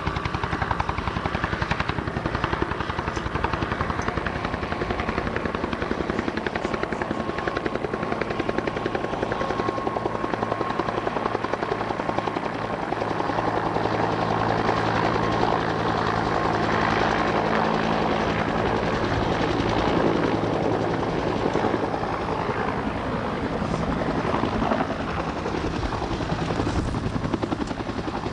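Bell UH-1 Huey helicopter with a steady chop from its two-blade main rotor and a whine from its turbine as it flies past low. It then hovers just above the ramp.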